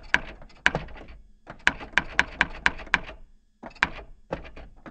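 Typewriter keys striking one at a time in an uneven rhythm, with a couple of short pauses, as text is typed out letter by letter.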